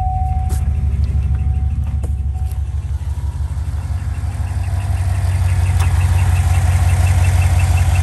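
Chevrolet/GMC L86 6.2-litre LT V8 idling just after starting. From a few seconds in, a quick, evenly repeating high-pitched squeak comes through over the engine's rumble: the noise of a failing valve lifter.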